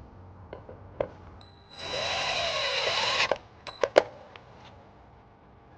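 Power drill driving a quarter-inch self-tapping screw into a flat surface of the vehicle body, running for about a second and a half with its motor pitch dipping and rising under load, followed by a few sharp clicks.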